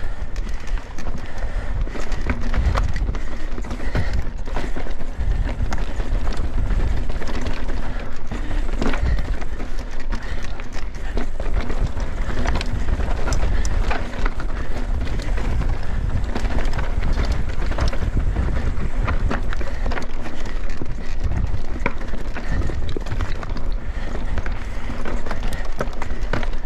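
Mountain bike ridden fast over dusty, rocky singletrack, heard from a handlebar-mounted camera: tyres rolling over dirt and stones, and the bike rattling and clattering with frequent sharp knocks over the bumps. Wind buffets the microphone with a constant low rumble.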